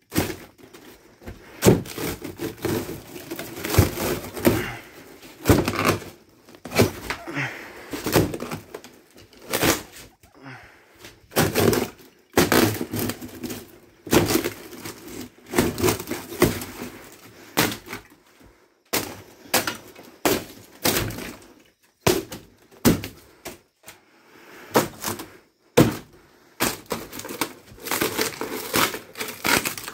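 Hammer blows striking camper wall paneling and framing in an irregular series, often one or two a second, with brief pauses. Thin wood cracks and splinters as it is broken out.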